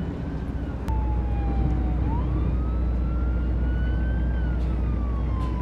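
A siren wailing, its pitch gliding slowly up and down. A low, steady rumble starts with a click about a second in and runs under it.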